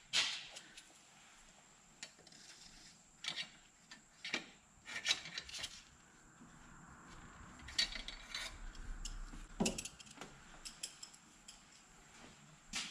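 Scattered clicks, taps and short scrapes of hands working tools and metal parts on an engine, a few seconds apart.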